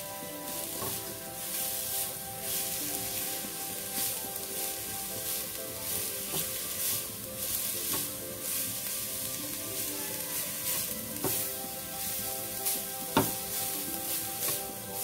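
Grated carrots sizzling in hot ghee in a pan, stirred and scraped with a silicone spatula in repeated sweeps as they are sautéed before the milk goes in. There is a sharper knock about thirteen seconds in.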